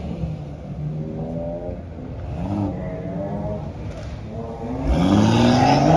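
BMW 1 Series hatchback's engine running as the car pulls away slowly, with two short revs climbing in pitch and then a louder rev rising near the end, opened by a low thump.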